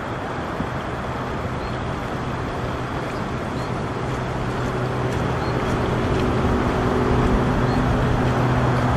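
Steady road and engine noise of a moving car heard from inside the cabin, with a low hum underneath, slowly getting louder.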